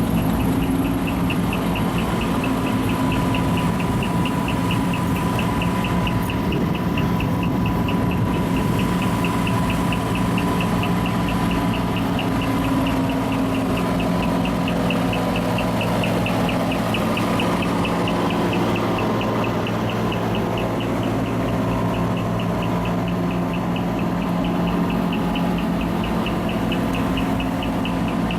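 Large diesel truck engine idling steadily. A fast, regular high ticking, about two or three a second, runs on above it.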